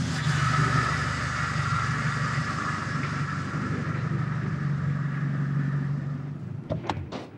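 Mercedes-Benz SLK 55 AMG's V8 engine running at low speed as the car rolls into a parking space and stops. The engine sound fades about six and a half seconds in, followed by a few sharp clicks near the end.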